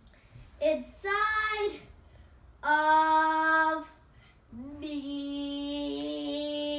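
A young boy singing without words: a short phrase, then a held note, then a note that slides up and is held for about three seconds.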